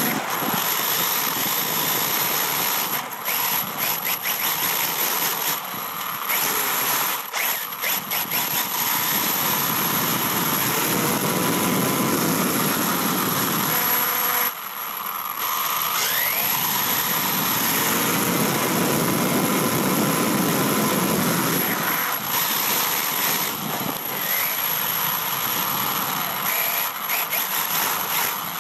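HPI WR8 Flux radio-controlled rally car's brushless electric motor and geared drivetrain whining under throttle, with tyre and road noise, heard up close from a phone mounted on the car's shock tower. The whine rises and falls in pitch as the car speeds up and slows, cuts back sharply about fourteen seconds in, then climbs again.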